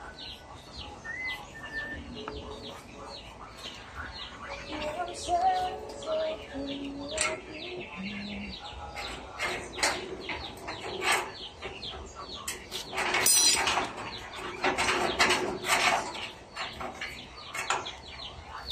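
Square steel bar being twisted by hand with a long pipe lever in a jig: irregular sharp metal clicks and scrapes, with a short rapid rattle about two-thirds of the way through. Birds chirp in the background.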